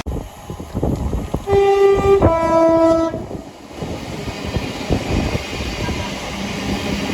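Train's two-tone horn sounds once about a second and a half in: a short higher note, then a lower note held for about a second, over the rumble of the train.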